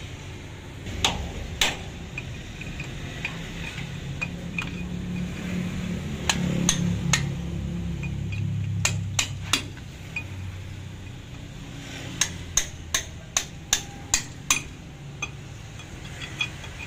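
Hammer striking a steel punch held against the axle nut of a truck wheel hub, sharp metal-on-metal blows. They come a few at a time at first, then as a quicker run of about seven blows, roughly three a second, about twelve seconds in.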